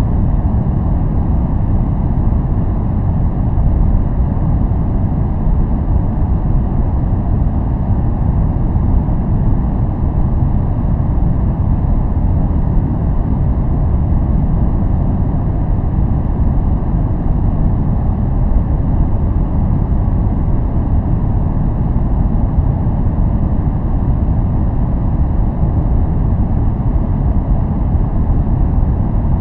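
Steady, unchanging noise track: a deep, even rumbling hiss heavy in the bass with little treble, more like brown noise than bright white noise.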